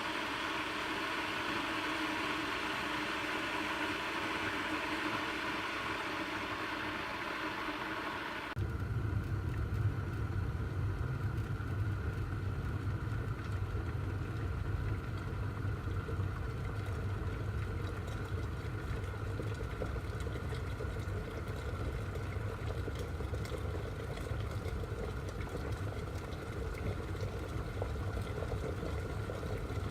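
Electric glass kettle heating water: a steady hiss for the first eight and a half seconds, then, after an abrupt cut, a low steady rumble of the water at a vigorous boil.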